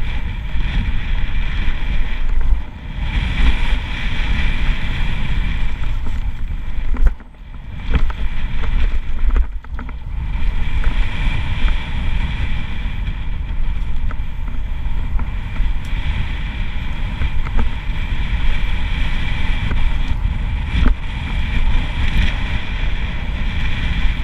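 Wind buffeting a handlebar camera's microphone as a Giant Reign full-suspension mountain bike runs fast down a dirt trail, with tyre rumble and the rattle of the bike over rough ground. There is a brief lull about seven seconds in.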